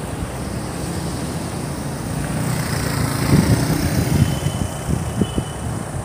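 Wind buffeting the microphone over street traffic, with a passing vehicle swelling loudest a little past the middle.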